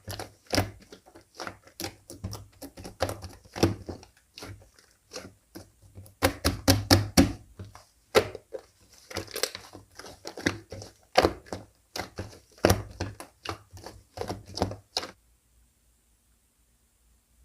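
Slime being kneaded and pressed by hand, giving rapid runs of sharp clicks and pops that come in clusters, then stop about fifteen seconds in.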